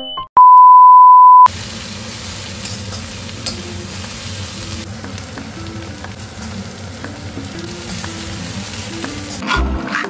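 A loud, steady electronic beep for about a second near the start, then sliced onions frying in an iron kadai with a steady sizzle under soft background music. A few low knocks near the end.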